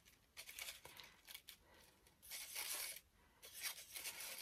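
Paper rose petals rustling and crinkling under the fingers as they are pressed onto the glued rose, in several short, faint scratchy stretches, the longest about two seconds in.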